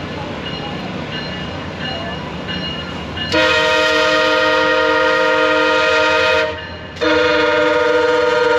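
MARC diesel locomotive's multi-chime air horn sounding two long blasts as the train approaches a grade crossing. The first blast lasts about three seconds and the second starts half a second after it ends. Before the horn there is a low rumble from the approaching train.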